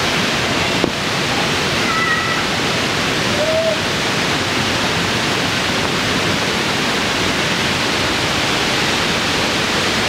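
Water rushing steadily down a series of low cascading waterfalls over limestone shelves. A sharp click about a second in and a few short, faint, high-pitched squeaks rise above the rush.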